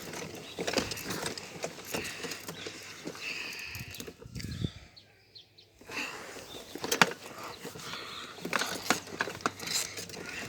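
A bicycle rattling and clicking as it is pedalled over a rough path, with a heavier thump about four and a half seconds in and a brief lull just after.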